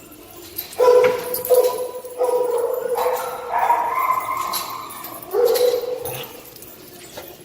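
Dogs barking in a series of loud, drawn-out, howl-like calls, one after another.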